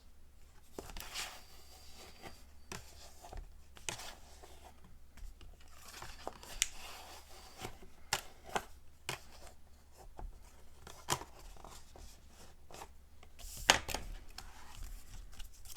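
Paper and cardstock flips being handled and bent on a craft table: scattered rustles, short scrapes and light clicks, the sharpest click a little before the end.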